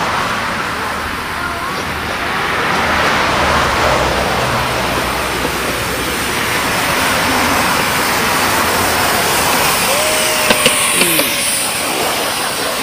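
Steady running noise of a 7.25-inch gauge miniature railway train rolling along the track, with a few sharp clicks about ten seconds in.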